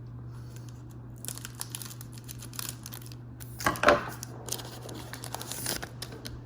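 A foil trading-card pack being crinkled and torn open, with crackling bursts and the loudest rip about four seconds in. A steady low hum runs underneath.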